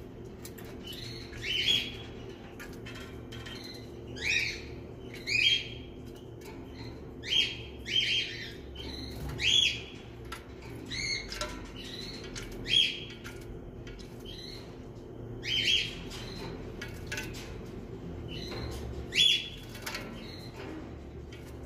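European goldfinches calling: about a dozen short, sliding calls spread through, over the light splashing and wing-fluttering of a goldfinch bathing in a shallow water dish. A steady low hum runs underneath.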